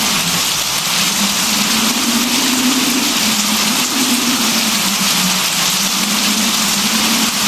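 Steady, heavy rain hiss, with a low hum underneath that wavers slowly up and down in pitch.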